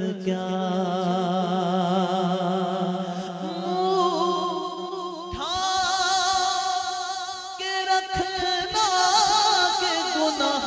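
A man singing an Urdu naat into a microphone, unaccompanied by instruments: long, ornamented lines with wavering vibrato. A steady low drone sits beneath the voice for about the first half.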